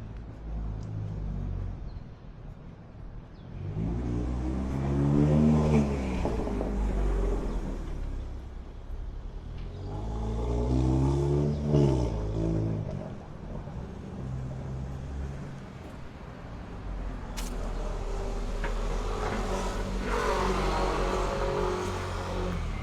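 City street traffic: three vehicles pass close by in turn, each engine note rising then falling in pitch, over a steady low traffic rumble.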